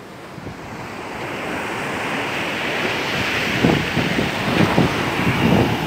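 Sea surf breaking and washing up a sandy beach, swelling over the first two seconds, with wind buffeting the microphone in the second half.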